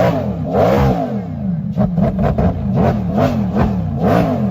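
Bugatti Tourbillon's naturally aspirated V16 engine being revved in repeated quick blips, its pitch rising and falling about twice a second.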